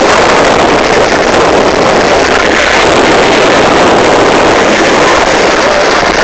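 Loud, steady rushing noise with no distinct pitch or strikes.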